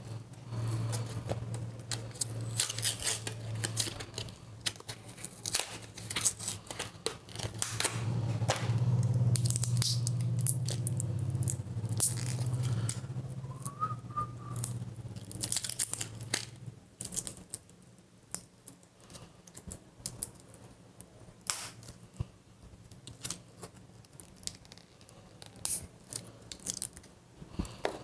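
Micro SD card packaging being worked open by hand: scattered crinkling, clicking and tearing of plastic and card. A low steady hum runs underneath and fades out a little past halfway.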